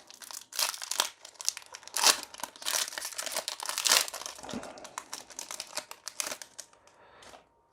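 Foil wrapper of a Magic: The Gathering booster pack being torn open and crinkled by hand, an irregular run of sharp crackles and rips that thins out near the end.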